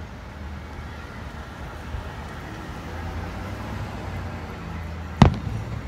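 A firework shell bursting in the sky with one sharp, loud bang about five seconds in, over a steady low rumble. A fainter pop comes about two seconds in.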